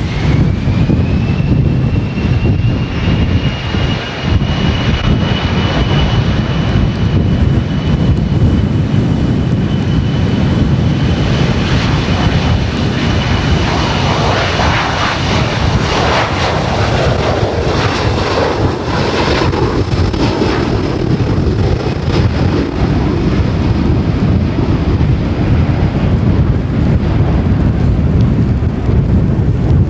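Boeing 737-500's CFM56-3 jet engines at takeoff power: a whine rises in pitch over the first two seconds and holds, the engine noise is loudest about halfway through and then fades as the jet departs. Heavy wind buffets the microphone throughout.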